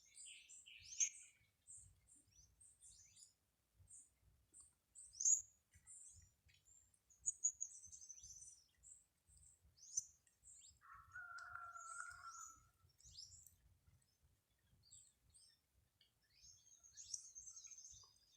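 Wild birds chirping and singing, several short high calls and trills overlapping throughout. About eleven seconds in, a lower, steadier call holds for around two seconds.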